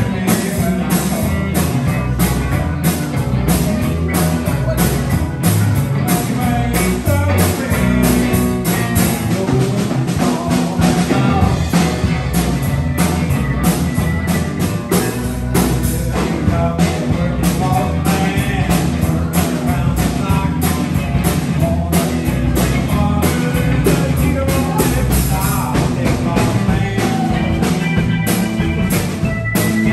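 Live amplified band with electric guitars, bass, keyboard and drum kit playing a blues-rock number over a steady drum beat.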